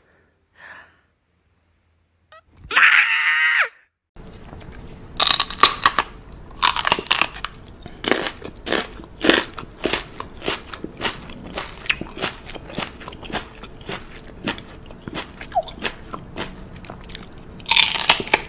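Something crunchy being chewed close up: loud, irregular crunches, one or two a second. They begin a few seconds in, after a brief wavering high-pitched cry.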